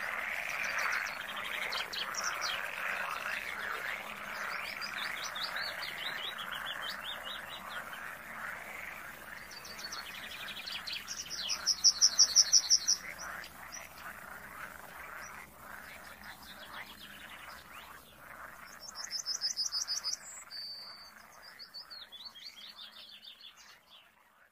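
A dense chorus of rapid, chattering animal calls, with high bird trills over it; two loud high trills stand out, near the middle and about three-quarters of the way through. The chorus thins and fades out near the end.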